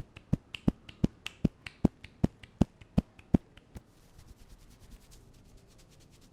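Rapid rhythmic hand strikes on the head during an Indian head massage, about five sharp slaps a second alternating stronger and weaker, stopping a little under four seconds in. Faint, much quicker light patting follows briefly.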